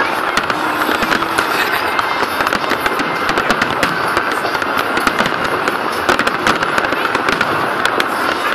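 Fireworks display: a dense, unbroken barrage of bangs and crackles from aerial shells bursting overhead.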